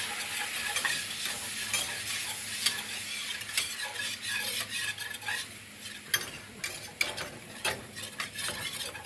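Wire whisk stirring flour into sizzling hot fat in a stainless steel skillet, making a roux: the whisk clicks and scrapes against the pan often over a steady frying hiss.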